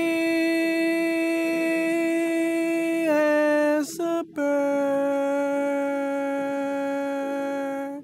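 A solo voice singing long held notes: one note held for about three seconds that dips slightly lower, a short breath about four seconds in, then a second, lower note held for nearly four seconds.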